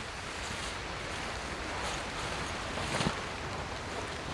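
Tent fabric rustling and flapping as the inner tent is pulled from its bag and shaken out, with one sharper flap about three seconds in. Underneath is a steady rushing background of wind and surf.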